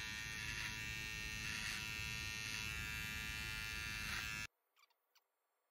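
Electric beard trimmer buzzing steadily as it trims the beard line at the neck. It stops abruptly about four and a half seconds in.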